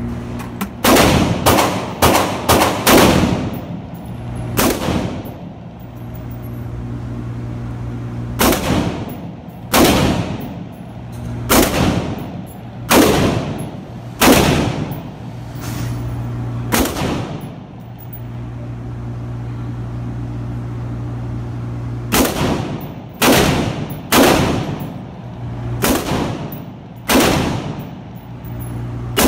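AR-15 rifle fired in semi-automatic, one shot at a time, about twenty shots in three strings with pauses between, each crack ringing off the walls of an indoor range. A steady low hum runs underneath.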